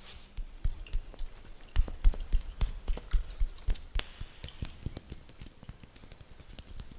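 Fingernails scratching through a beard close to the microphone: irregular crisp scratches with soft low thumps, several a second, densest and loudest about two to four seconds in and thinning out near the end.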